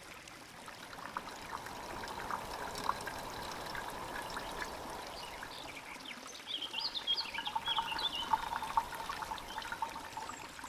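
Water trickling and dripping steadily, with a few brief high chirps a little past halfway.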